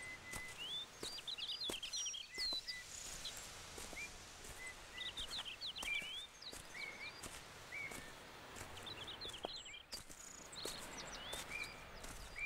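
Woodland ambience of small birds chirping: quick runs of high chirps and short whistled notes come every second or two over a faint steady hiss.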